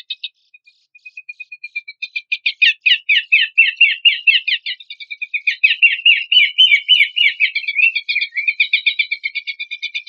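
Songbird song: a fast, chattering series of short, high, down-slurred notes. A few scattered notes come first, and about two seconds in the song becomes a dense run of several notes a second that carries on to the end.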